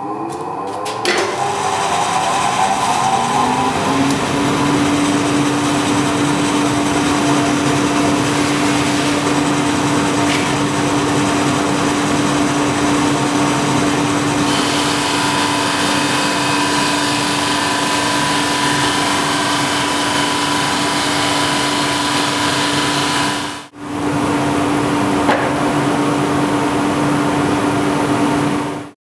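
Jet 16-inch drum sander running: the motor comes up to speed over the first few seconds, then runs steadily with a held hum and a hiss. The hiss grows about halfway through, and the sound breaks off for a moment near the end.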